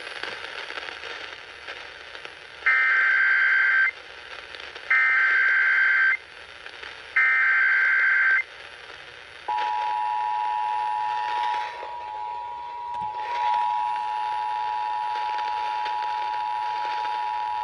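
Emergency Alert System activation: three identical bursts of warbling digital data tones (the SAME header), each a little over a second long. About a second after the last burst, the two-tone EAS attention signal begins: a steady dual tone held for about eight seconds. Underneath is a faint hiss. The header and tone mark the start of an emergency alert, here a National Weather Service severe thunderstorm warning.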